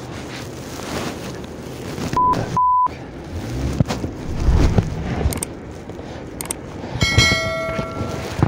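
Two short censor bleeps, steady pure beeps, the second one longer, about two seconds in, over a low rumble of wind and handling. About seven seconds in, a bright ringing chime from a subscribe-button bell animation.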